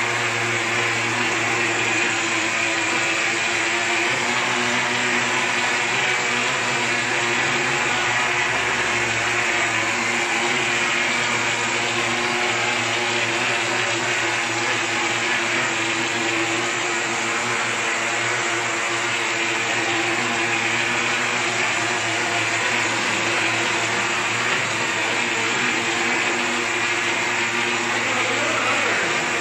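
Mortar spraying machine running steadily, a motor hum under the hiss of compressed air blasting mortar from the spray gun onto a wall.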